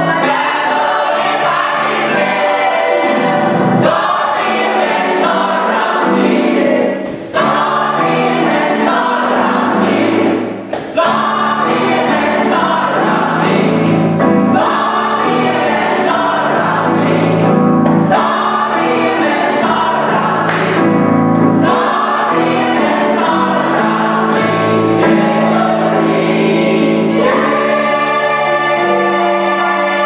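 Gospel choir of mixed men's and women's voices singing, with two brief breaks in the sound about seven and ten seconds in.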